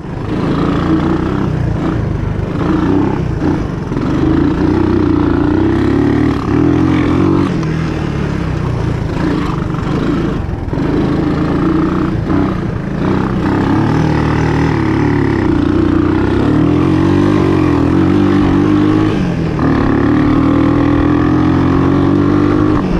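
A small off-road engine running continuously, its pitch rising and falling as the throttle changes.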